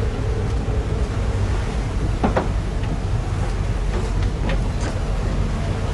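Steady low rumble and wash of noise aboard a boat on rough sea, with a few faint knocks, the clearest a little over two seconds in.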